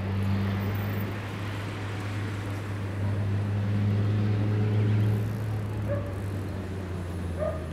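Street traffic: a vehicle's engine runs with a steady low hum while a car passes along the road, loudest about four to five seconds in.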